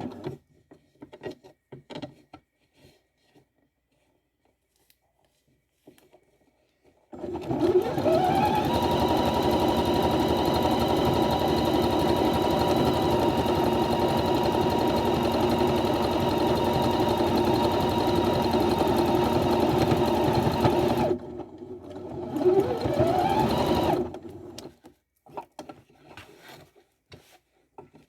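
Electric sewing machine stitching hair wefts onto a wig cap: after several seconds of small handling clicks it speeds up and runs steadily for about fourteen seconds, stops, then runs again briefly for about two seconds before more handling clicks.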